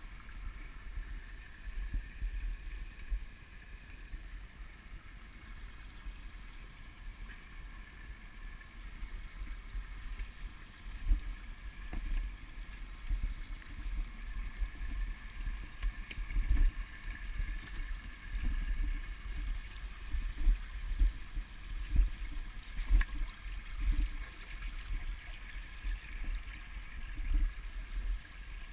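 Shallow stream trickling steadily over rocks, with irregular low thuds and rumble from walking along the bank. The thuds grow stronger and more frequent a little under halfway through.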